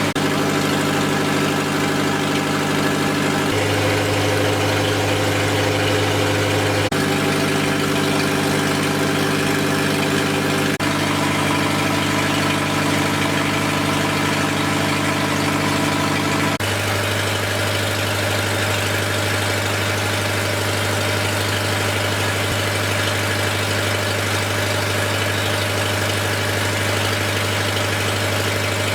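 Lister diesel generator engine running steadily under a heavy electrical load of about 9.5 kW, with no exhaust muffler fitted, so it is bloody noisy. The tone changes abruptly a few times.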